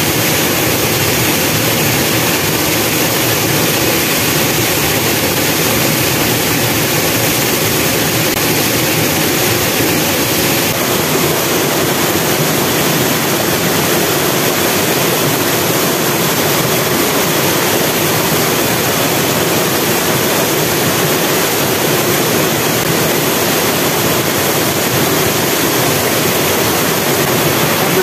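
Waterfall and the rocky stream below it rushing: a loud, steady hiss of falling water.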